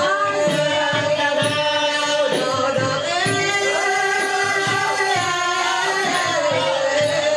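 Traditional Lao music with singing: held, sliding vocal lines over a steady percussion beat of about three strokes a second.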